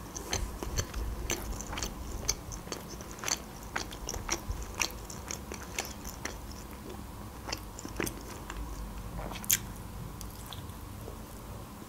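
A person chewing pizza, with a run of sharp wet mouth clicks and crunches. The loudest click comes near the end, as she bites into the slice again.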